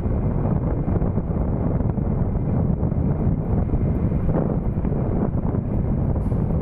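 Wind buffeting the microphone of a moving vehicle, a steady loud rumble with road noise underneath.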